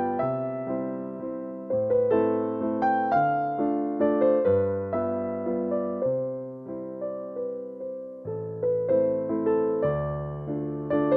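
Background piano music: a melody of struck notes, each fading away, over slower-changing bass notes.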